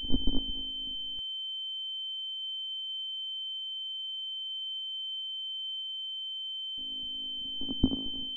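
A steady, high-pitched pure tone, like a ringing in the ears, holds without change throughout. Near the start and again near the end it is joined by a brief burst of low rustling noise with a few sharp knocks. The first burst cuts off suddenly.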